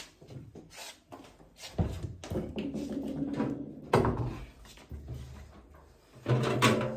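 Several knocks and clunks, the loudest about two and four seconds in, with another cluster near the end.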